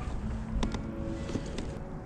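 Chill lo-fi background music: soft held chords changing pitch, with a couple of short percussion hits.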